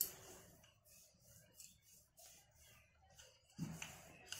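Wooden rolling pin rolling paratha dough on a granite counter: faint rubbing, with a sharp click at the very start and a soft thump near the end.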